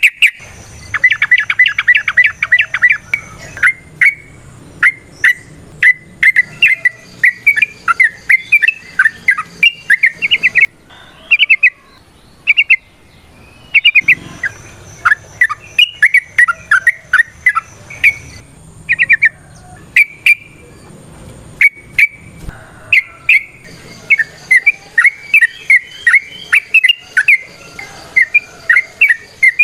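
Yellow-vented bulbul (trucukan) singing: loud, rapid, bubbly chattering phrases broken by short pauses, with a fast trill near the start.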